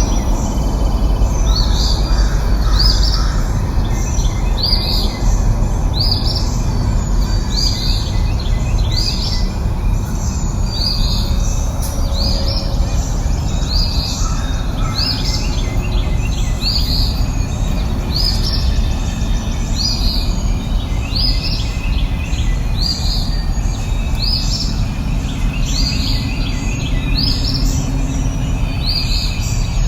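A bird repeating a short, high chirping call about once a second, over a steady low background noise.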